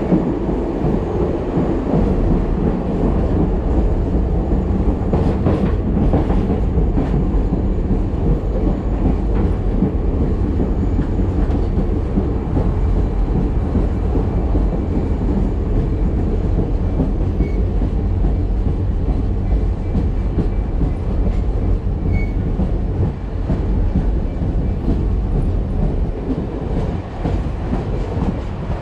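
Excursion-train passenger coach rolling along the track: a steady rumble of wheels on rail heard from the coach window.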